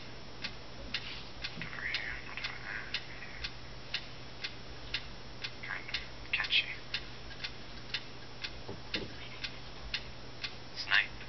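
Steady ticking at about two ticks a second. A few faint short sounds come in around two and six seconds in.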